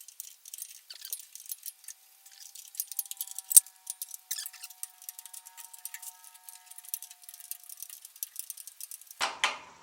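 Metal tool clicking and clinking against a nut while tightening the carburetor mounting nut on a 1952 Ford 8N tractor. Rapid, irregular clicks run throughout. A sharp clink about three and a half seconds in leaves a metallic ringing for several seconds. A louder clunk of handling comes near the end.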